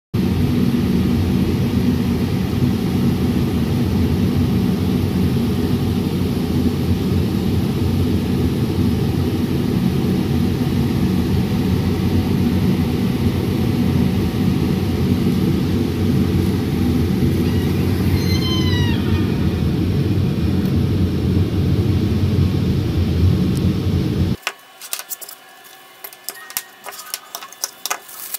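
Steady loud whir of a laser cutter and its air extraction running, with a brief high cry about eighteen seconds in. Near the end it cuts to quiet clicks and rubbing as wooden lampshade pieces and a plastic glue bottle are handled.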